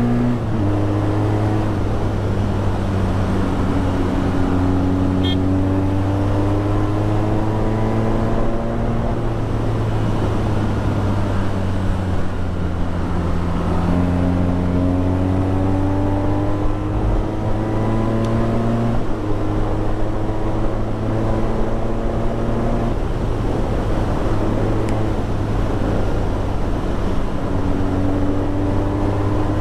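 BMW R nineT's boxer twin through an Akrapovič exhaust, under way with the engine note climbing slowly and jumping in pitch every few seconds at gear changes, over a steady rush of riding noise.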